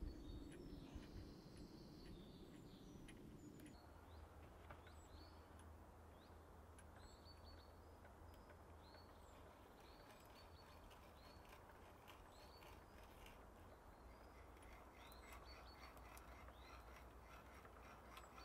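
Near silence: faint woodland ambience, with a short high chirp repeating about once a second through most of it.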